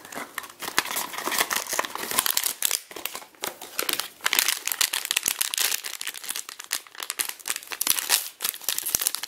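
Packaging of a Vinylmation blind box crinkling and tearing as it is opened by hand: a dense run of small crackles and rustles.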